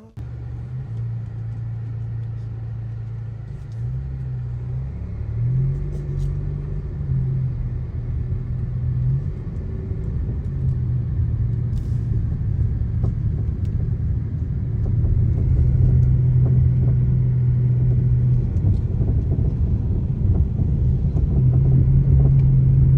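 Motor vehicle running with a steady low rumble. The engine hum shifts up and down in pitch several times, as with changing engine speed, and grows louder in the second half.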